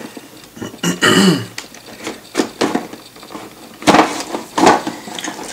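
A thick cardboard model-kit box handled in the hands: a few sharp knocks and scrapes of cardboard, the loudest about four seconds in. A brief voice sound comes about a second in.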